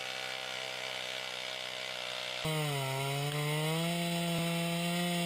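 Handheld chainsaw engine running at a steady pitch. About two and a half seconds in it suddenly gets louder, and its pitch dips and then climbs back and holds.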